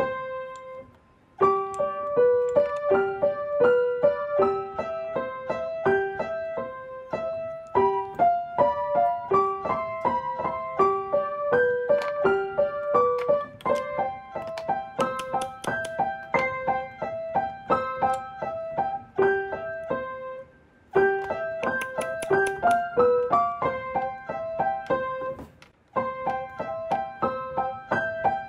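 Background piano music, a light tune of short notes in a steady rhythm. It breaks off briefly about a second in, again about twenty seconds in, and once more a couple of seconds before the end.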